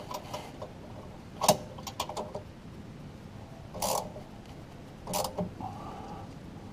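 Metal tools and parts clinking and knocking as they are handled while working on the transmission tailshaft: a few separate clanks and short metallic clatters, the loudest about a second and a half in.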